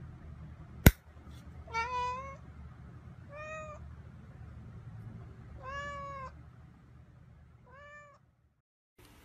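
An orange tabby cat meowing four times, short rising-and-falling calls a second or two apart, after a single sharp click about a second in.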